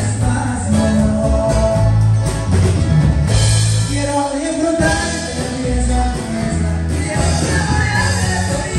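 A live band plays a Mexican regional song with a singer, over guitar strumming, a prominent electric bass line and drums.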